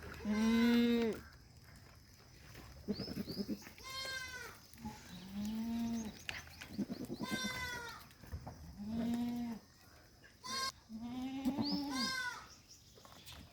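Goats bleating, about eight calls in a row from several animals, some low-pitched and some high. The loudest call comes right at the start.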